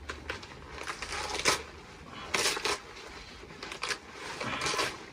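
Gloved hands peeling and stripping the split, rotting outer leaves off a pulled Cumbrian giant leek: irregular crisp rustling and tearing of leaf, in short bursts, the longest about halfway through.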